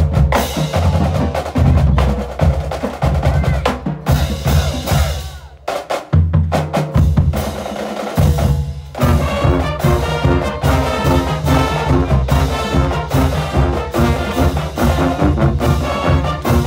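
Marching band playing: drums beating a steady pattern with bass and snare drums, and from about nine seconds in the winds (flutes, saxophones and sousaphones) playing a tune over the drums.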